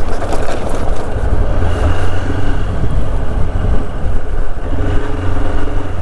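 Motorcycle riding along a road at steady speed, heard from the rider's seat: engine running under a heavy rumble of wind on the microphone.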